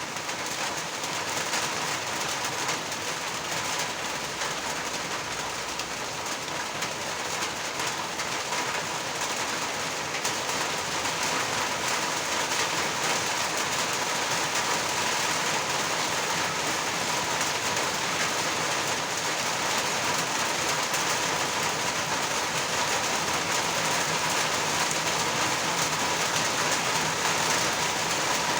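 Steady, dense rainfall, growing gradually louder.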